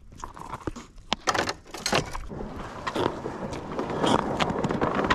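Footsteps crunching on snow-dusted lake ice, irregular at first and quicker and steadier from about halfway in.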